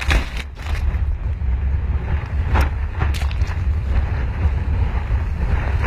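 Breaking surf whitewater churning over a kayak's bow-mounted action camera: a loud low rumble of turbulent water buffeting the microphone, with a few sharp splashes or knocks.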